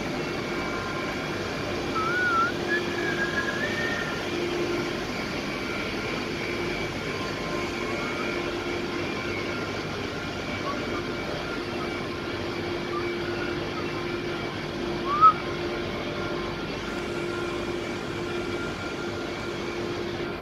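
Steady machinery drone from a thermal power plant: a constant hum with a few held tones over it. A few brief chirps come through about two to four seconds in and again near fifteen seconds.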